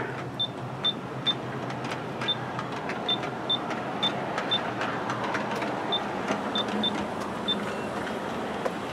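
G-scale model freight train with all-metal wheels rolling over garden-railway track: a steady rumble with irregular light clicks as the wheels cross the rail joints.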